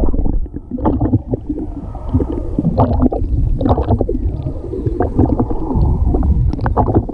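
Muffled underwater sound picked up by a camera held beneath the sea surface: low rumbling with irregular gurgling and bubbling of water against the housing.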